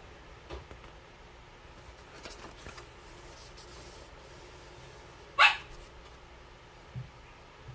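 A single short animal call, rising quickly in pitch, about five and a half seconds in, with a few faint clicks before it.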